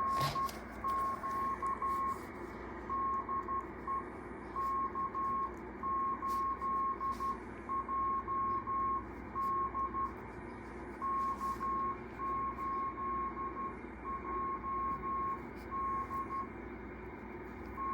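Morse code (CW) signal from a shortwave radio receiver: one steady tone near 1 kHz keyed in dots and dashes, over band hiss trimmed by the receiver's filter. It is a station calling CQ.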